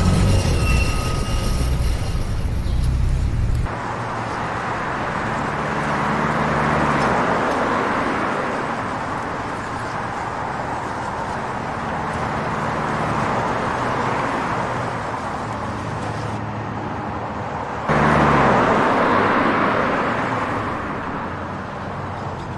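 Street traffic: motor vehicles passing with engines running over steady road noise, swelling and fading as they go by. The recording cuts abruptly twice, about four seconds in and again near eighteen seconds, when it gets louder. It opens on the tail of a train clip with high, steady wheel squeal.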